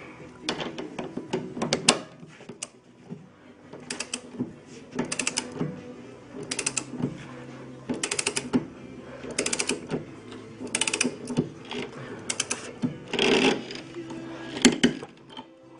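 Ratchet wrench clicking in about a dozen short bursts of rapid clicks, one for each stroke, as it runs down the nuts on a front strut's top mount.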